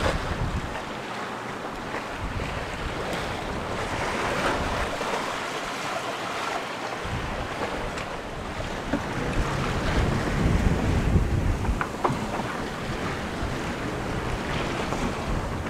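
Wind buffeting the microphone on an open sailboat deck over the rush of rough, breaking ocean waves, with a stronger gust about ten seconds in.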